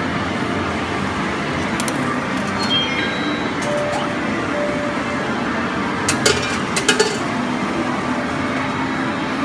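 Steady arcade din with faint game music, broken by a few sharp clinks, the loudest a quick cluster about six to seven seconds in.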